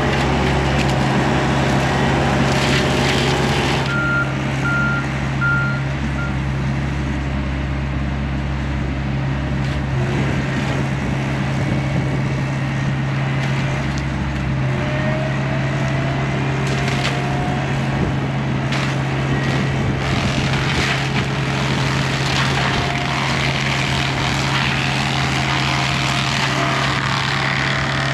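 A compact diesel machine runs steadily under load with a hydraulic forestry mulching head. Crackling from wood being shredded comes through in the second half. Four short warning beeps sound a few seconds in.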